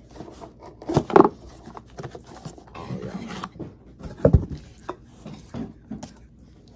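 Scissors cutting open a cardboard box, with cardboard scraping and rustling as it is opened and handled, and two sharp knocks about a second in and a little past four seconds.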